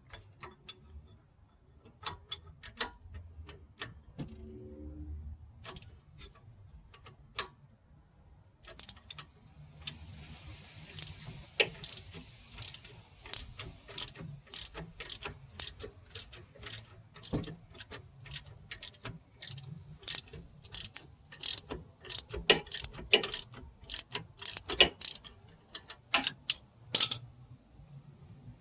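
Hand ratchet clicking as the 15 mm rear brake caliper bolt is turned out, with a wrench holding the slide pin. A few scattered clicks at first, then from about ten seconds in a steady run of clicks, a few per second.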